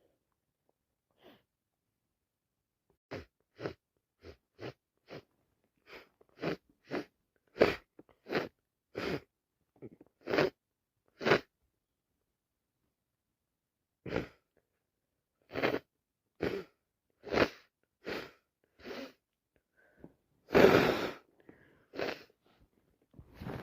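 A person with a cold sneezing over and over: a long run of short sneezes, about two a second, with a brief pause partway, then a longer, louder one near the end.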